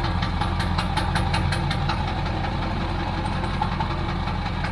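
Ford 7.3 Power Stroke V8 turbodiesel idling with a steady diesel clatter, shortly after a first start. The idle is not yet smooth while air is still being purged from the freshly rebuilt oil and fuel lines.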